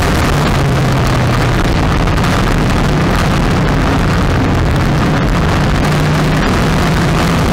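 Street stock race car's engine running loud and steady at racing speed, heard from a camera mounted on the car, its note shifting slightly up and down in pitch.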